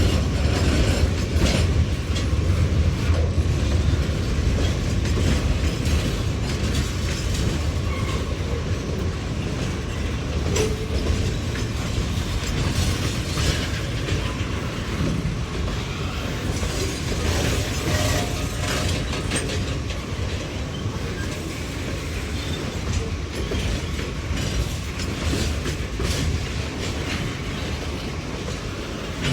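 Freight train cars rolling steadily past at low speed, their steel wheels clacking over the rail joints.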